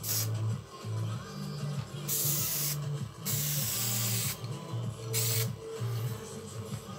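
Aerosol spray can of acid-etch primer hissing in four bursts: a short one at the start, two longer ones of about a second each in the middle, and a short one about five seconds in.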